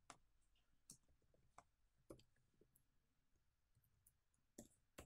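Faint computer keyboard typing: about half a dozen sharp, irregular key clicks, two of them close together near the end.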